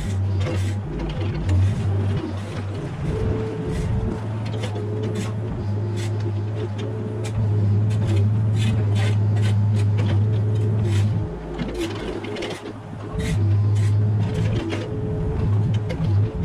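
Mini excavator engine running under load, with repeated sharp clanks and knocks from its bucket or attachment working. The engine note drops about eleven seconds in and picks up again a couple of seconds later.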